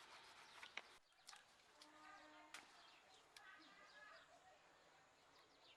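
Faint bird calls over quiet background, with a few light clicks.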